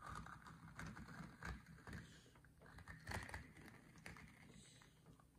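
Faint crinkling and small clicks of a soft plastic cup being squeezed and flexed by hand, with the grown crystals inside shifting and cracking loose.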